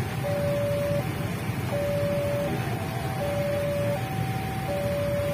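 Railway level-crossing warning alarm sounding its alternating two-tone electronic signal, high then low, each tone about three quarters of a second, warning that a train is approaching with the barrier down. Underneath is the steady low hum of idling motorcycle engines.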